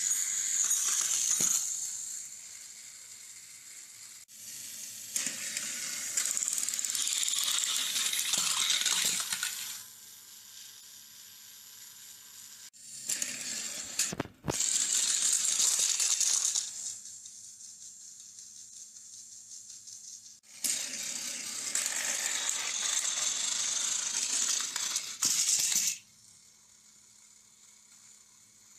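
Battery-powered plastic toy trains running on plastic track: a whirring motor and a clattering rattle of plastic wheels and cars. The rattle comes in about four loud stretches of a few seconds each, quieter between, as trains pass close by.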